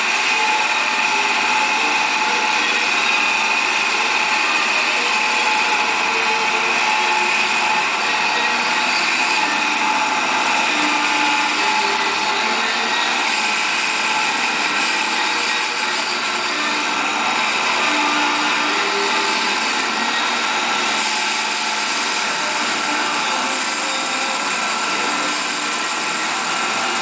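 Tormach 1100 CNC mill spindle running steadily, turning a wooden spindle on a Duality Lathe attachment while the tool cuts the wood. The sound is a steady motor whine with several high tones over a hiss of cutting.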